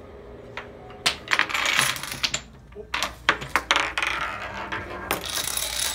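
Tabletop Rube Goldberg chain reaction running: plastic dominoes toppling in a rapid clatter, with small pieces knocking and clicking in irregular bursts.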